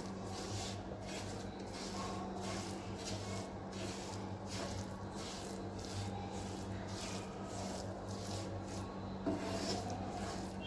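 Wooden spatula scraping and stirring roasted gram flour (besan) around a pan as sugar syrup is worked in, a dry rasping scrape repeated every half second or so.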